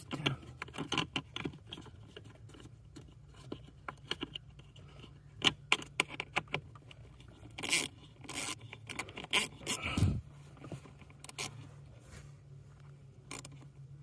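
Irregular clicks and short scrapes of hand work with a small ratchet, driving the mounting screws of a new blower motor resistor into the plastic HVAC housing. A steady low hum runs underneath.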